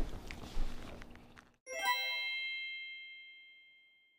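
Low kitchen room noise with a couple of small knocks, then an abrupt cut to a single bright chime that rings out and fades away over about two seconds, a transition sound effect.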